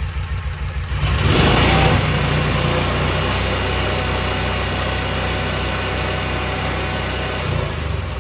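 Kawasaki Mule 4010's liquid-cooled V-twin engine idling, then revved up hard about a second in with the throttle floored, held high for several seconds and dropping back toward idle near the end. It runs smoothly on both cylinders, the misfire cured by replacing a broken spark plug.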